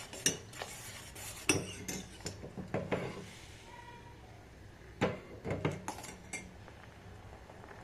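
A metal spoon clinking and scraping against a kitchen vessel in two short clusters of strokes, the first about a second and a half in and the second about five seconds in.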